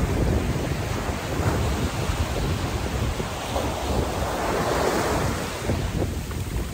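Small waves breaking and washing over sand in shallow surf, swelling and fading, with wind rumbling on the microphone.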